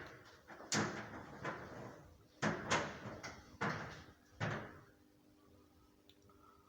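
A series of about seven sharp knocks or bangs, each with a short ringing decay, in the first five seconds; after that only a faint steady hum remains.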